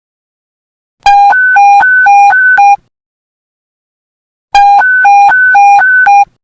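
Police panic button alert tone: two bursts, each under two seconds, of beeps alternating quickly between a low and a high pitch.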